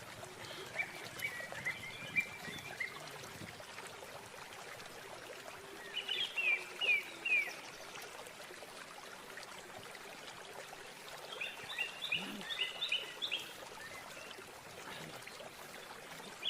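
A bird singing in short phrases of quick, high chirps, repeated three times a few seconds apart, over a faint steady background hiss.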